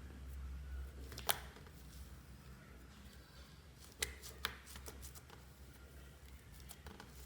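Slime being mixed and pressed by hand, giving a few sharp pops and clicks: one about a second in and two close together around four seconds in, over a low steady hum.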